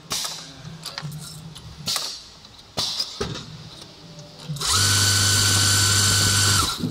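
Automatic armature winding machine for small 3- and 5-slot rotors: scattered clicks and clacks of the mechanism between winds, then about two-thirds of the way in the winding arms spin at speed with a loud, steady motor whine and hum for about two seconds before stopping.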